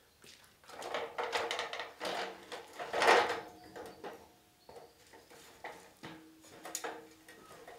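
Folding aluminium ladder being unfolded and set down: metal rattling and clanking, loudest about three seconds in, then a few lighter knocks as it is shifted into place.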